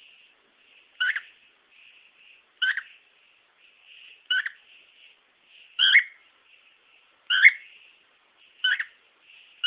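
Cockatiel giving six short, falling whistled calls about a second and a half apart, with soft chirps in between.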